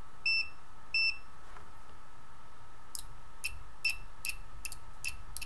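Extech EX430 multimeter's beeper: two short beeps about a second apart as its button is pressed. Then, from about three seconds in, a quick run of clicks and brief chirps, about three a second, as the probe tips are tapped together in continuity mode. The continuity beeper responds fast and does not latch.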